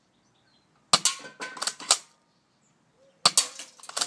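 Spring airsoft M3000 pump-action shotgun firing twice, about a second in and again near the end. Each sharp snap is followed by a quick run of lighter clicks and clacks.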